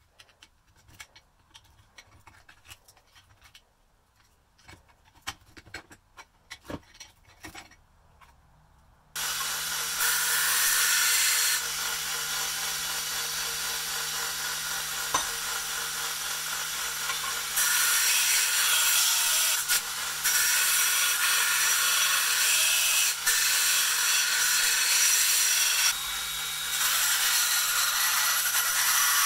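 A belt grinder starts up about nine seconds in, after a few faint handling clicks, and runs steadily while the mushroomed steel socket of an old slick is ground against the belt. The sound grows louder in stretches when the steel is pressed to the belt.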